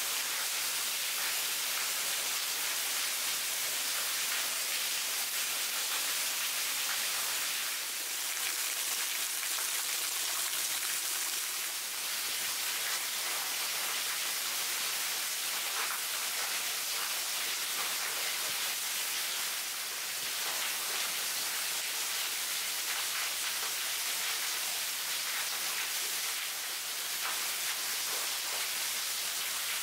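Steady hiss and patter of falling water: rain, and a thin waterfall pouring off a rock ledge and splashing below.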